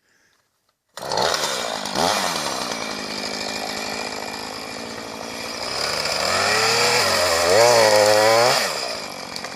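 Husqvarna 445 two-stroke chainsaw starting up about a second in and running at full throttle, cutting into a hung-up tree. In the last few seconds its pitch sags and climbs again as it works in the cut.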